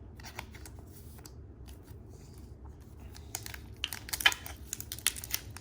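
Plastic crinkling and rustling as Pokémon trading cards and their packaging are handled: scattered soft rustles at first, growing denser about three seconds in, with one sharp click.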